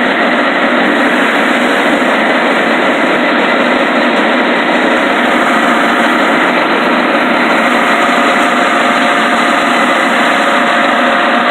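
Firewood processor running steadily, a loud, even mechanical drone with no pauses or separate strikes.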